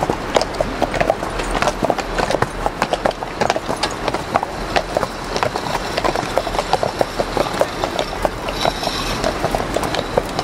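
Belgian draft horses' hooves clip-clopping at a walk: many quick, irregular knocks, over steady wind noise on the microphone.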